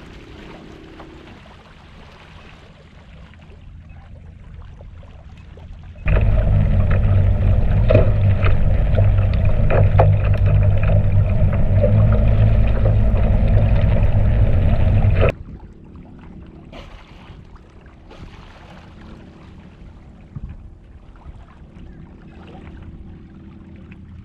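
Faint water sounds around a clear canoe. Then, about six seconds in, a sudden loud, muffled underwater rush begins as the microphone goes below the surface. It lasts about nine seconds and cuts off abruptly when the microphone comes back up, leaving faint water sounds again.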